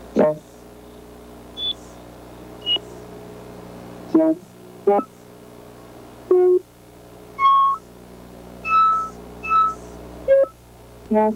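Short electronic synthesizer bleeps at shifting pitches, about one a second, some stepping up or down in pitch, over a steady low hum.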